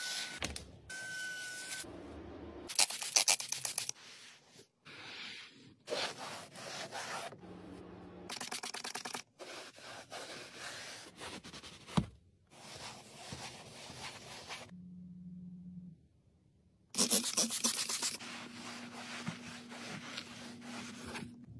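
Cleaning of rubber car floor liners in short, abruptly cut pieces: a vacuum nozzle whistling as it runs along the liner at the start, then scrubbing and rubbing, and near the end a microfibre towel rubbed over the liner.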